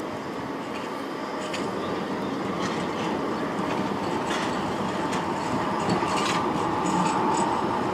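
Articulated city tram rolling past on street track. Its wheels click irregularly over rail joints and points against a steady rumble and whine that grows slowly louder.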